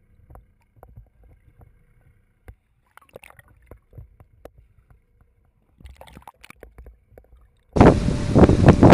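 Faint scattered clicks and low rumbles from an underwater camera. Near the end this cuts to loud wind buffeting the microphone over open water.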